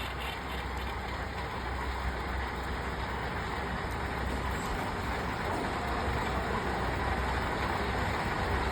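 Metal lathe running steadily, its motor giving a low hum under an even whirring noise.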